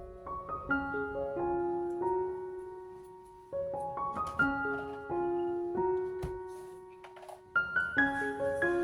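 Background piano music: a slow melody of sustained notes, with a few faint knocks underneath.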